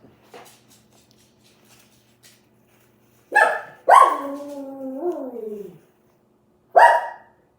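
Dog barking: a sharp bark about three seconds in, then a bark that trails off into a long falling whine, and another sharp bark near the end.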